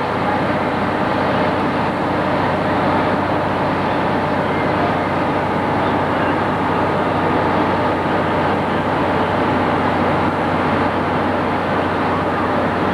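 Steady, unbroken drone of a vehicle's engine and running noise, with a constant hum.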